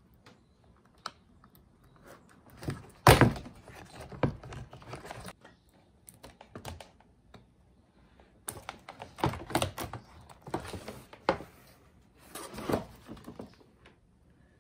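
Hard plastic knocks and clicks from a Toyota HiAce door trim panel being worked with a soldering iron and shifted about on a plywood bench; irregular, with the loudest knock about three seconds in.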